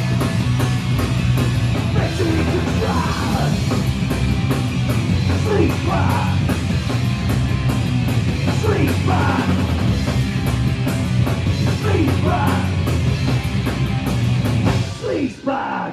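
Live hardcore punk band playing the instrumental close of a song: loud, dense distorted guitars and drums, steady until the music breaks off near the end.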